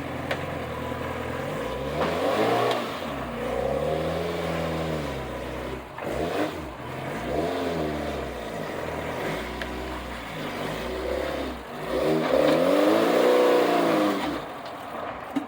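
Off-road vehicle's engine revving in repeated surges, its pitch rising and falling with the throttle, working under load while crawling over rocks. The strongest surge comes near the end.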